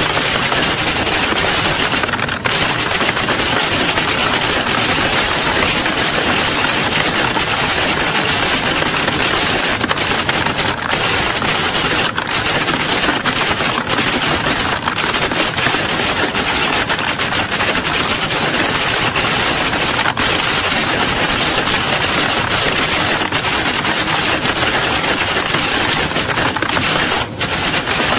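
Many people typing at once in a large room: a dense, unbroken clatter of keystrokes, so many that the clicks merge into a steady rattle.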